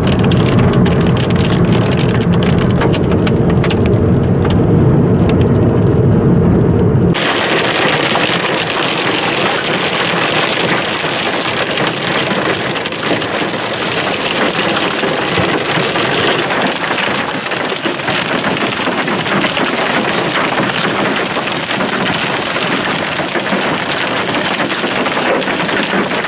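Small hail and rain hitting a car, heard from the cabin as a low rumble with many sharp ticks of hailstones. About seven seconds in, the sound changes abruptly to a steady, brighter hiss of heavy rain and hail.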